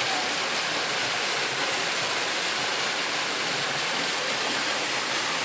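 Steady rushing of flowing water from a stream, an even hiss with no breaks.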